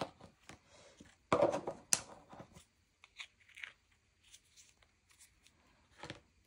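Small plastic handling sounds: a short rustle about a second in, then light clicks and taps as a diamond-painting wax caddy and its wax pad are handled and set into a plastic tray.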